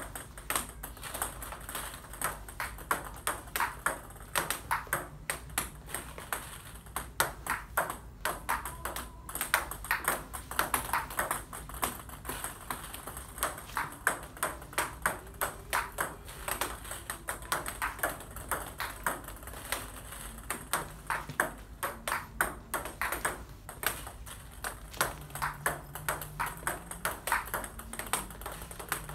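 Table-tennis ball struck again and again with a long-pimpled, spongeless (OX) rubber bat on forehand attacks and flicks of no-spin balls, bouncing on the table between hits: a steady run of sharp clicks, two or three a second, with brief gaps.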